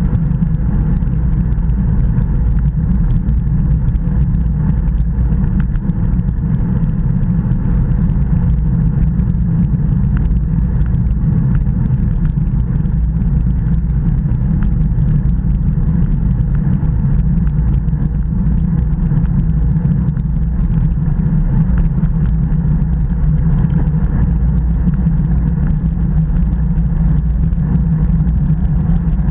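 Wind buffeting the microphone of a Garmin VIRB action camera on a road bike riding at race speed: a loud, steady low rumble that does not let up.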